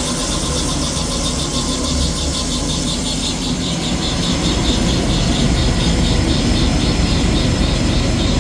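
Doall 2013V vertical bandsaw, driven by a 2 hp three-phase Baldor motor, running with no load while its variable-speed drive is wound down from top speed in high gear. A fast rhythmic pulsing comes in about three and a half seconds in.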